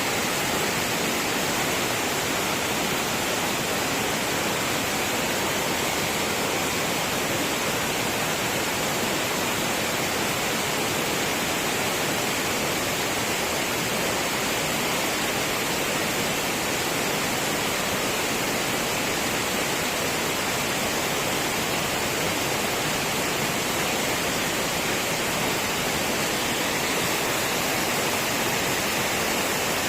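Rushing water, a steady, even hiss with no breaks or changes.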